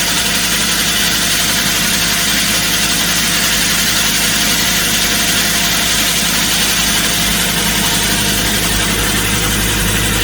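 Excavator's diesel engine running steadily, powering the hydraulic rock core drill, a constant drone with no let-up.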